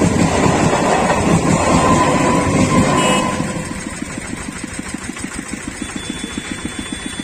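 Bandel–Katwa EMU local train running past at speed. About three seconds in its noise drops away, leaving a small engine idling with an even pulse.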